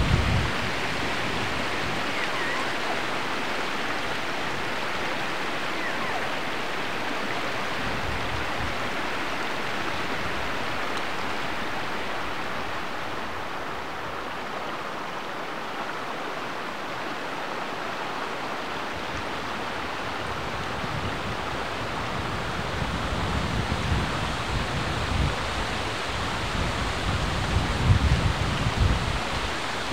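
Flowing stream: a steady rushing of water. Low, gusty rumbles come in about two-thirds of the way through and grow near the end.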